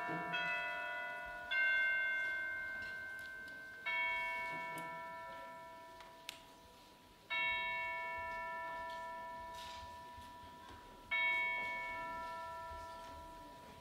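Bell-like chimes struck five times a few seconds apart. Each strike rings several notes together and slowly dies away.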